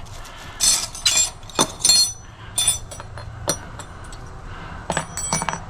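Loose galvanized steel brackets and hardware clinking and knocking together as they are handled and sorted, with a string of sharp metallic clinks, some ringing briefly.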